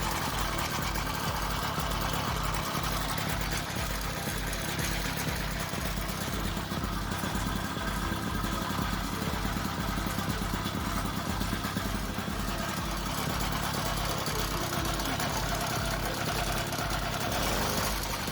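Motorized bicycle engine running steadily at idle, with a low beat repeating evenly a couple of times a second.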